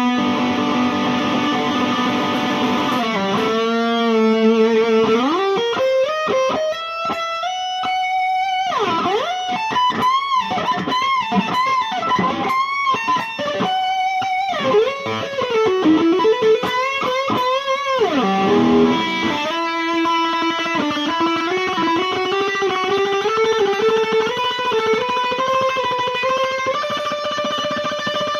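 Electric guitar, an IYV ILP 400 with a Floyd Rose tremolo, played as a lead line. Held notes give way after a few seconds to repeated pitch swoops up and down, and the pitch climbs slowly through the last third.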